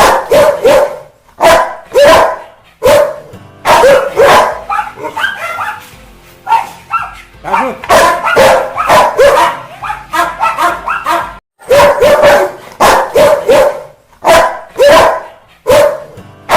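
Rottweiler barking aggressively: loud, sharp barks in quick runs of several, with brief pauses between the runs.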